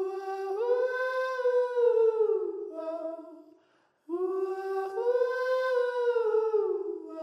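Wordless hummed vocal melody in two long, smoothly gliding phrases with a short break between them.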